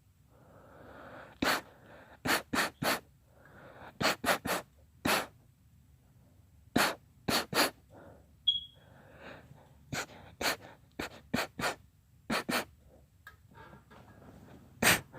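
A girl's sneezing fit: about twenty short, sharp sneezes, mostly in quick runs of two or three, with hurried breaths drawn in between.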